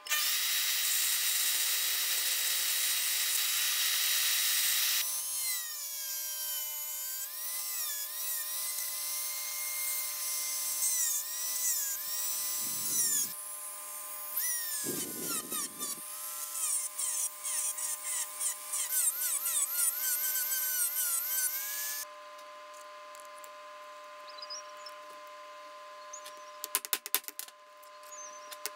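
Small bandsaw running and cutting kydex for about five seconds. Then a Dremel Moto-Tool rotary tool with a sanding drum whines for much longer, its pitch rising and falling as it sands the sheath's edges. Near the end come a few sharp clicks.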